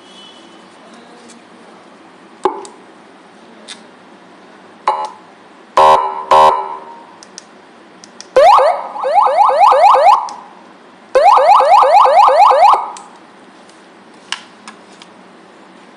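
Electronic police siren unit set off in short bursts: two quick loud horn blasts, then two bursts of a fast rising yelp, each under two seconds long. A few small clicks come before and after.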